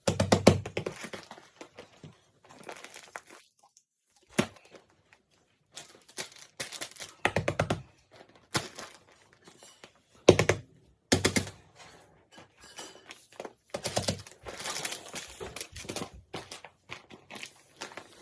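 Paper and tape crinkling and rustling in irregular bursts as paper squishies are handled, with a few sharp knocks between them.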